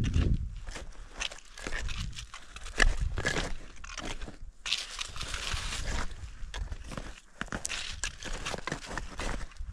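A hiker's boots crunching step after step in an uneven rhythm, with a low rumble on the microphone right at the start.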